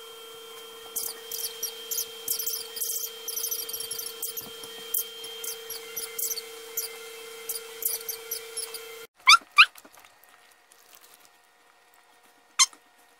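A husky digs and noses at a blanket, with a quick run of high squeaks over a steady hum. After a cut, the dog gives two loud, short squeaky whines in quick succession, and another near the end.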